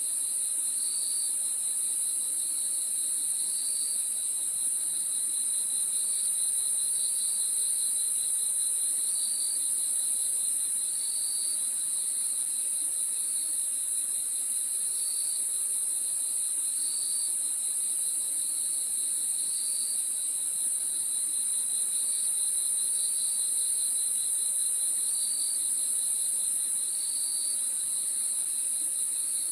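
Night-time chorus of crickets: a steady, high-pitched trill throughout, with a lower pulsing trill and short chirps repeating about every two seconds.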